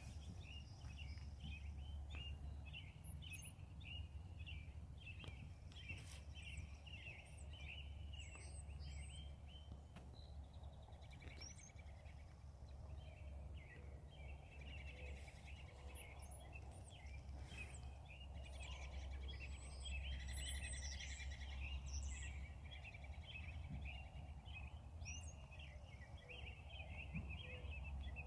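Many small birds chirping and twittering continuously, over a steady low rumble of outdoor background noise.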